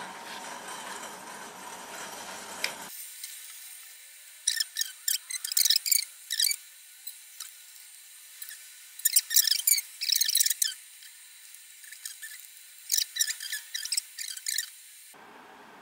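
Plastic mayonnaise sachet being squeezed and mayonnaise smeared over raw chicken skin with a silicone brush: crinkly, squelchy crackles coming in three bursts.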